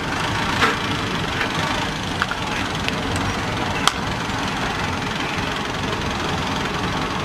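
Steady vehicle engine and road noise, with a few brief sharp clicks. The sharpest click comes about four seconds in.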